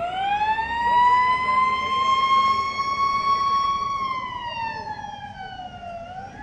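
Fire engine's siren wailing in a slow cycle. The pitch climbs over about a second, holds high for a few seconds, falls slowly, then starts climbing again at the very end. The siren grows fainter in the second half.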